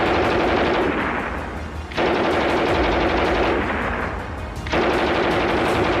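MG42 machine gun firing long bursts at a very high rate of fire, with short pauses between them. One burst ends about a second in, another runs through the middle, and a third starts near the end.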